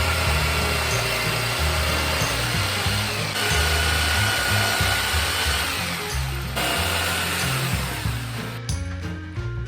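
An electric power tool running under load for about eight and a half seconds, a dense noise with a steady whine that changes pitch twice, then cuts off near the end. Background music with a steady bass line plays throughout.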